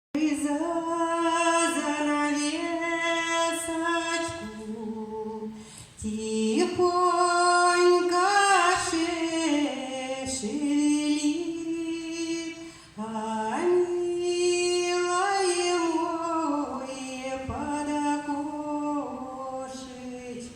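A woman's solo voice singing a slow Russian song in long held notes. The phrases break off about 6 and 13 seconds in.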